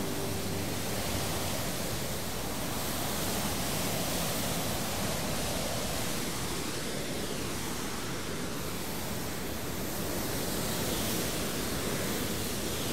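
Steady rushing noise of open sea water, even and unbroken with no distinct waves or strokes.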